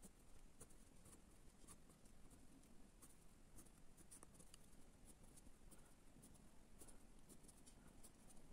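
Faint scratching and tapping of a pen on paper, in many short strokes, as dashed lines and small marks are drawn.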